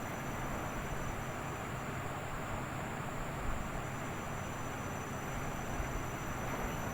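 Washing machine running: a steady low rumble with an even hiss over it.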